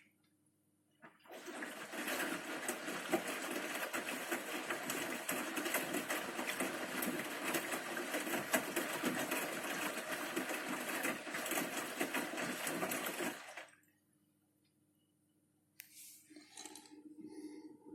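Bosch Series 6 front-loading washing machine running mid-wash for about twelve seconds, a steady rush with fine clicking, before stopping suddenly.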